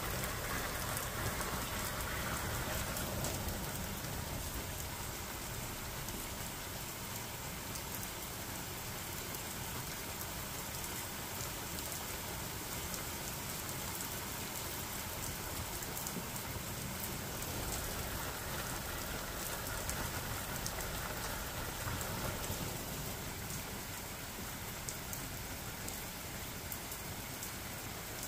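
Steady rain-like hiss with faint scattered ticks.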